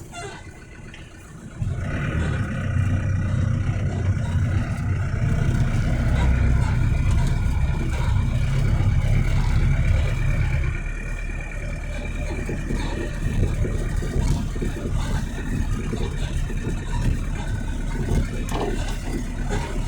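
A motor vehicle engine starts abruptly about two seconds in and keeps running steadily, settling to a slightly lower, quieter running about halfway through.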